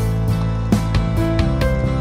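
Background music: a tune of held, plucked-string notes over a steady bass line.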